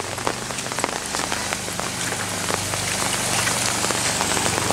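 Steady rain falling on wet pavement and floodwater, with many separate close drop hits ticking through the hiss. A steady low hum runs underneath.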